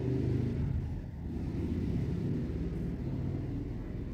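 Steady low rumble of shop background noise.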